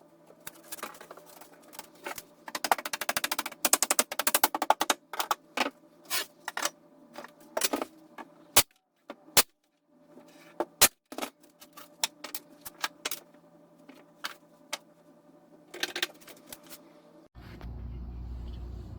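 Nail gun firing brads into plywood cleats: sharp single shots and quick runs of shots over a faint steady hum. Near the end the sound gives way to a low steady rumble.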